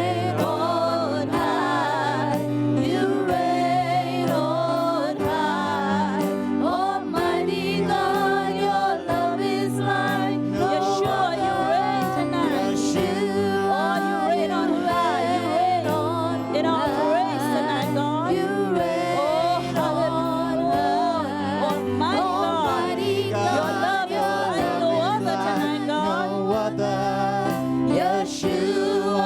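Gospel worship music: voices singing with vibrato over a steady instrumental backing.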